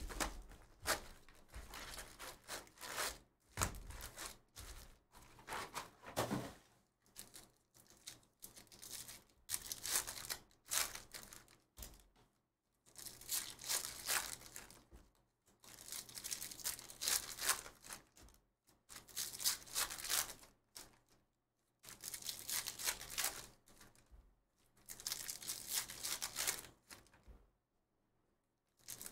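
Trading-card packs and box wrapping being torn open and crinkled by hand, in repeated bursts of a second or two with short pauses between, with cards handled and stacked in between.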